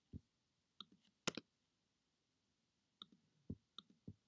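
Faint computer mouse clicks, about half a dozen at irregular spacing, over near silence.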